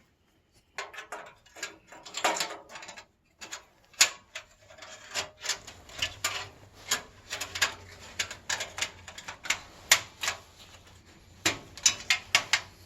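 Irregular clicks, taps and light knocks of hands handling computer hardware, with some rubbing between them.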